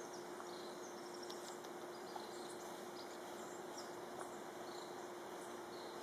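Quiet outdoor ambience: a steady hum under a faint background hiss, with brief high chirps scattered throughout and one small tick about two seconds in.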